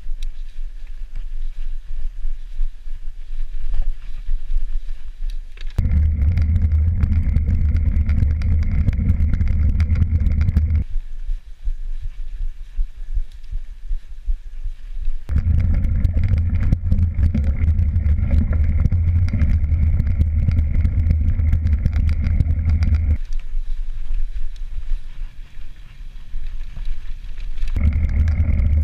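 Mountain bike rolling fast over a dirt singletrack, heard on an action camera as wind buffeting and trail rumble. A steady low hum cuts in about six seconds in, drops out about five seconds later, returns for about eight seconds mid-way, and comes back near the end.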